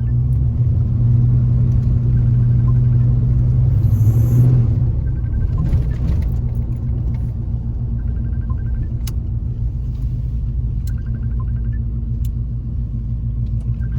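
LS-swapped pickup truck's V8 engine and drivetrain running under way, heard as a steady low rumble from inside the cab. It is a little louder for the first few seconds, then settles.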